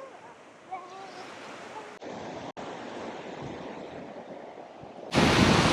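Ocean surf washing onto a beach in strong wind. Near the end, a sudden much louder rush of wind noise on the microphone.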